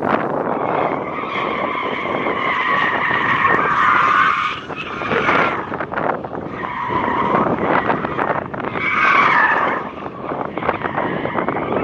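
Car tyres squealing through hard cornering, in three stretches with brief easings between, over steady wind noise on the microphone.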